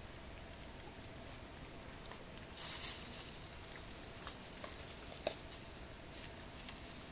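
Long-tailed macaques foraging in dry leaf litter: a short burst of leaf rustling about two and a half seconds in, a sharp click a little after five seconds, and a few small ticks over faint background noise.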